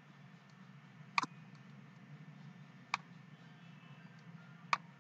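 Three computer mouse clicks, each sharp and short, spaced about two seconds apart, over a faint steady low hum.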